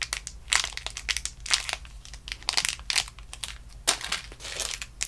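Clear plastic wrapper of a packaged squishy toy crinkling as it is handled and squeezed, in quick irregular crackles with a short lull near the end.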